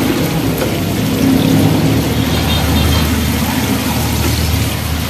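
Shrimp and tomato sizzling in a frying pan over a gas burner as a wooden spatula stirs them, with a steady low hum underneath.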